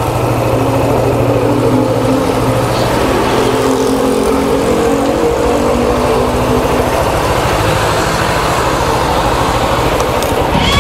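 Suzuki GSR 150's single-cylinder engine running at low revs and idling while the motorcycle is eased into a parking spot, a steady close-up engine sound that wavers slightly in pitch midway.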